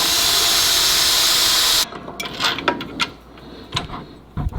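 Power drill boring through the mower's metal mounting plate, running steadily and then stopping abruptly about two seconds in. Light clicks and a knock of handling follow.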